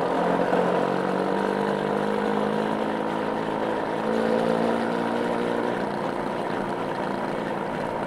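Motorcycle engine running under way, its pitch rising and falling as the throttle changes and easing off after about six seconds, over a steady rush of wind and road noise.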